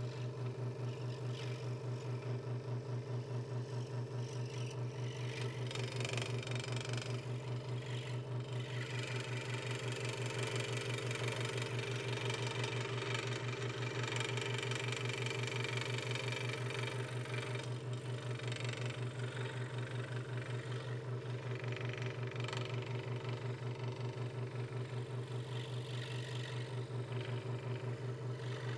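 Hegner Multicut 2S scroll saw running steadily while cutting letters in thin wood: a steady low hum with a rapid, even pulse from the blade stroking up and down.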